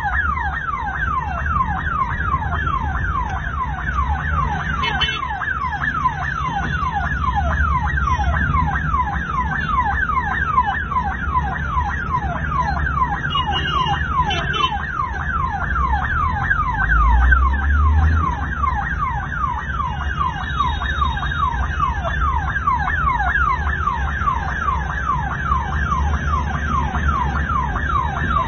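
Ambulance siren sounding without a break in a rapid falling yelp, about three sweeps a second, heard from inside the ambulance over the low rumble of its engine and road noise. A brief low rumble swells just past the middle.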